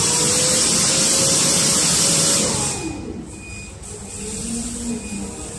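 Clark forklift running as it carries a loaded pallet: a steady engine tone with a strong hiss, the pitch rising during the first two seconds and dropping as it eases off about two and a half seconds in, followed by a few short high beeps.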